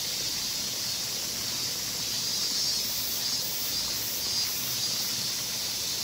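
Steady hiss of running spring water, an even rushing sound with no breaks.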